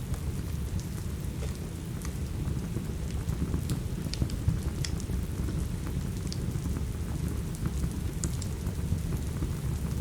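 Steady rain over a constant low rumble, mixed with scattered sharp crackles and pops from a wood fire in a fireplace.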